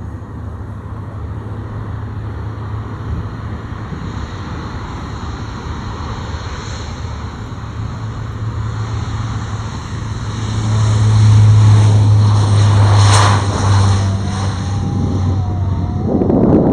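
Lockheed Martin C-130J-30 Hercules turboprop engines at takeoff power: a steady low propeller drone that grows louder about ten seconds in.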